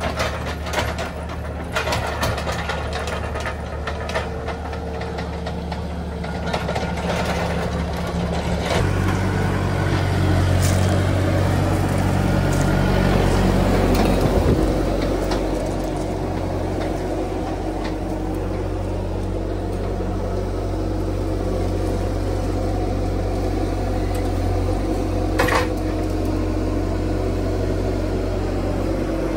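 Bobcat T300 compact track loader's diesel engine running steadily, with sharp metal clanks in the first few seconds. About nine seconds in, the engine note steps up louder and deeper, and a single sharp clank comes near the end.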